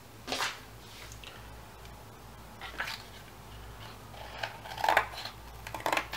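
Scissors cutting corrugated cardboard in a few separate short crunching snips, the last ones coming in a quick cluster near the end.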